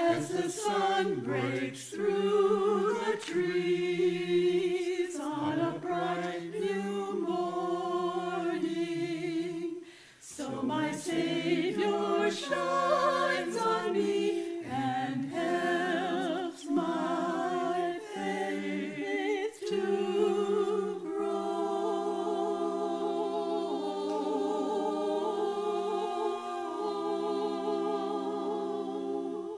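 Mixed church choir singing in harmony, with a brief break about a third of the way in, then closing on a long held final chord that stops at the end.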